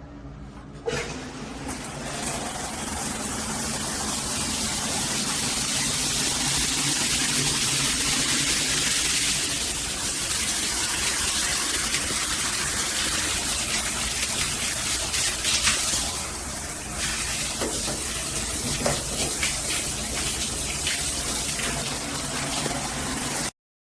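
Shower turned on with a click about a second in, then water spraying steadily from the shower head, building over the first few seconds; it cuts off suddenly near the end.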